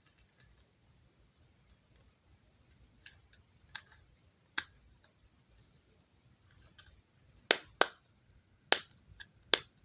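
Sharp plastic clicks from a fidget toy being handled. They come one at a time at uneven intervals, a few faint ones early and louder, closer-spaced ones in the second half.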